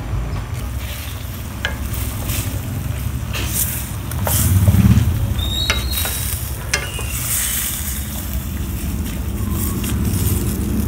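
Squid sizzling in a stainless steel wok as a wooden spatula stirs it, scraping and knocking against the pan, with a louder stir about halfway through. A steady low rumble runs underneath.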